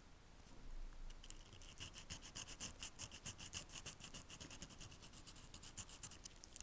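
A small abrasive sanding stick rubbed quickly back and forth on a Noodler's Ahab fountain pen part, a run of even scraping strokes starting about a second in: hand modification of the pen's nib and feed.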